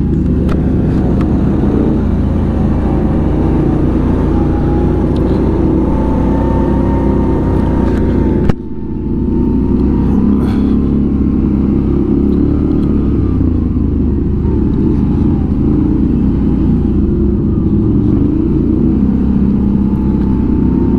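Can-Am ATV engine running under way, its pitch rising and falling a little with the throttle. A single sharp knock comes about eight and a half seconds in.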